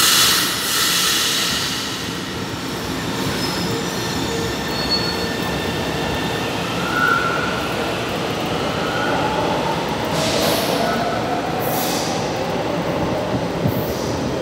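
São Paulo Metro Line 1 trains in an underground station: one pulling away from the platform, then another arriving, with the rising and falling whine of electric motors and short high wheel squeals. A sudden loud rush of noise comes right at the start.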